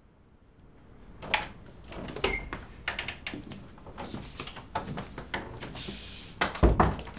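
A door opening and someone moving about a room: a run of clicks and knocks with a few small clinks, a short hiss, then a heavy thump near the end.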